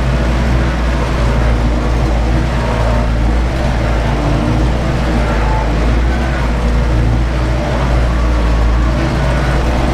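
Ursus 914 tractor's diesel engine running steadily under heavy load while pulling a disc harrow through fallow ground, heard from inside the cab.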